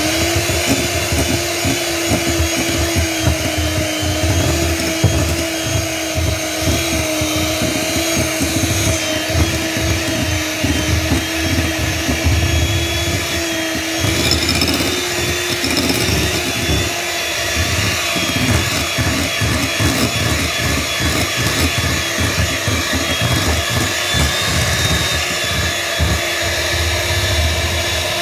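Electric hand mixer running steadily, a motor whine over the churning and rattling of its beaters as they work flour into creamed butter and icing sugar to make cookie dough in a glass bowl.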